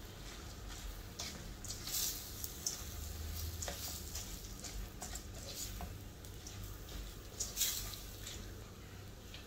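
Plastic spatula stirring and scraping raw glutinous rice, carrots and bell pepper around a metal frying pan, in irregular strokes over a faint sizzle from the pan. The scrapes come louder about two seconds in and again near the end.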